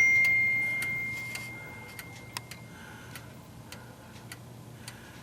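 Running OG clock movement: one hammer strike on its bell at the start, a clear ringing tone that dies away over about three seconds, then the escapement ticking evenly, about once every 0.6 seconds.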